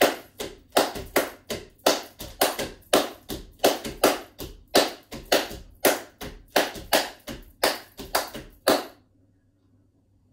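Body percussion: bare feet stamping a clave de rumba pattern on the floor while the hands clap a clave de son pattern over it, in a repeating syncopated rhythm of sharp claps and thuds. It stops about nine seconds in.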